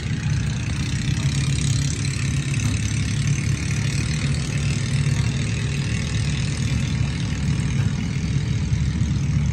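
An engine running steadily with a low, even hum, with a constant hiss over it.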